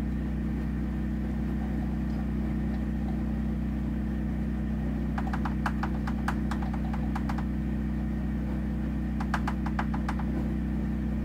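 A steady low mechanical hum, with a run of rapid light clicks about halfway through and another shorter run near the end.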